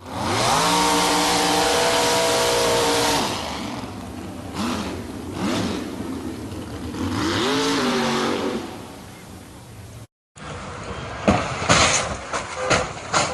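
Car and road sounds from dash-cam crash footage. A loud, steady tone with many overtones rises into place and holds for about three seconds, then stops suddenly, giving way to road noise with some rising and falling tones. After a cut about ten seconds in come several sharp knocks.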